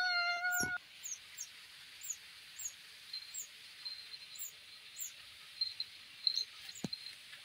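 A child's long, drawn-out yell on one held pitch, cut off about a second in. After it come faint, high, short chirps repeating about twice a second, and a single soft knock near the end.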